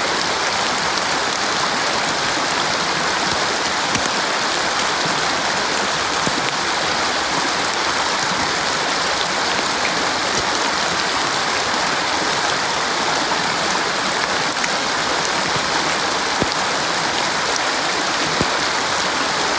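Small rocky woodland stream running steadily over stones.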